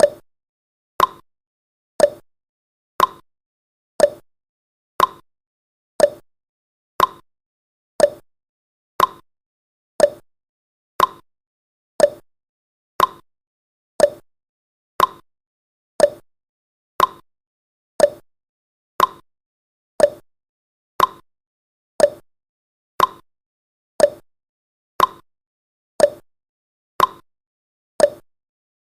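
Countdown timer's clock-tick sound effect: one short, sharp tick every second, with silence between.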